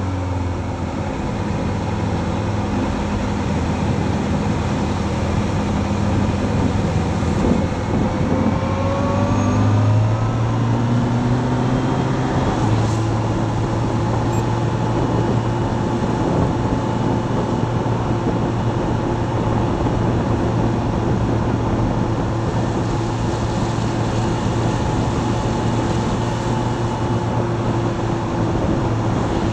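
Motorcycle engine accelerating through the gears, its pitch rising in steps over the first third, then holding steady at cruising speed, over a constant rush of wind noise.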